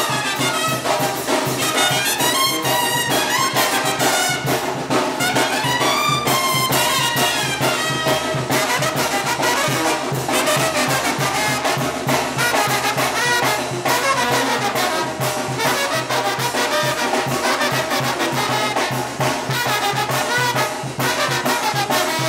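A Mexican brass banda playing live dance music: trumpets and trombones carry the tune over drums and percussion with a steady beat.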